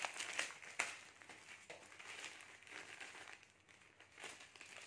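Plastic packaging crinkling and rustling as it is handled and opened, with a few sharp crackles in the first second, growing fainter after that.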